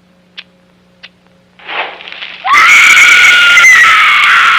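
A faint steady hum with two small clicks, then a short rush of noise. About two and a half seconds in comes a very loud, harsh scream-like shriek: it sweeps up in pitch at the start, then holds.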